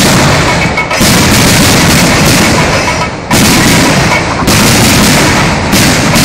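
Fireworks fired from the ground at close range: a dense, continuous barrage of bangs and crackling, very loud. The barrage surges afresh about a second in, a little after three seconds, halfway through and again near the end.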